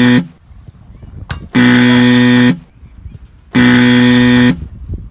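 Buzzer sounding in long, flat, loud blasts: one ends just after the start, then two more follow, each about a second long and about two seconds apart.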